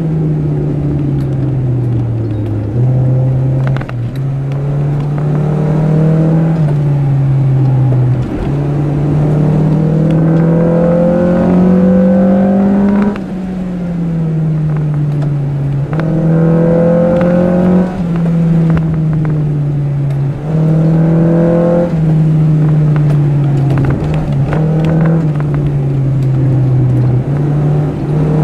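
Car engine running hard on a twisty road, its pitch rising in long swells and easing off several times, with a few sudden jumps in pitch where it changes gear.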